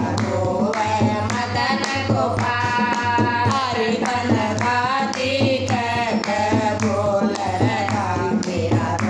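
Women singing a Hindi Krishna bhajan together, with a steady beat of hand-clapping and a dholak drum.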